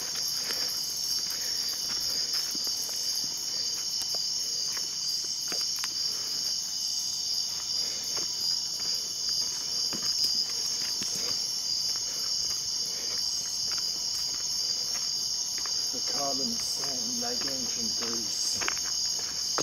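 Steady chorus of night insects, a continuous high-pitched trilling that never lets up, with faint scattered taps and a brief murmur of voices about sixteen seconds in.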